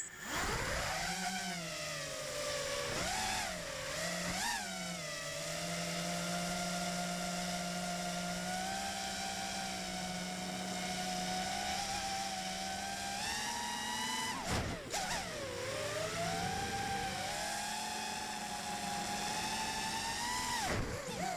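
Racing quadcopter's brushless motors and propellers whining, picked up by the camera on board. The pitch swings up and down with the throttle, holds steady for several seconds, then drops sharply about fourteen seconds in before climbing again.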